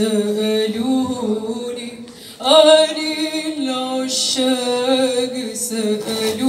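A young woman singing solo and unaccompanied, holding long notes that waver in pitch. She breaks off briefly about two seconds in and comes back in louder.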